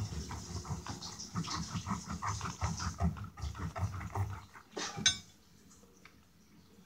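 Kitchen knife sawing through the spiky rind and juicy flesh of a horned melon: a run of short, uneven strokes for about four seconds, then one sharp crack about five seconds in.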